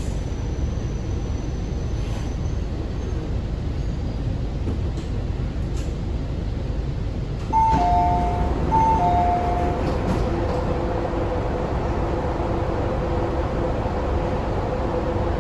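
MTR C-train subway car running and slowing into a station with a steady low rumble. About halfway through, a two-tone high-low chime sounds twice as the train stops and the doors slide open, followed by a steady hum.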